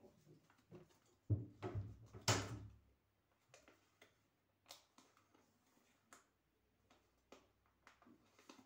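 A sheet of paper being handled and creased by hand as it is folded: soft rustling and faint crinkling clicks every second or so, with a burst of louder thumps and rustling between one and three seconds in.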